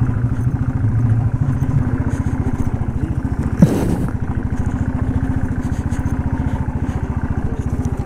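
A small vehicle's engine running at a steady, even beat while driving over a rough off-road track, with one short louder bump a little before halfway.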